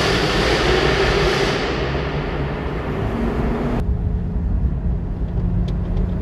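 Jaguar F-Type V8 engine running: a loud rush of engine and air noise that eases off, then an abrupt cut about four seconds in to a lower, steady engine hum.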